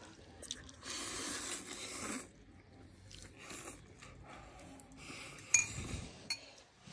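Someone slurping and eating instant noodles from a bowl, with a longer hissing slurp about a second in. Two sharp clinks of a utensil against the bowl come near the end.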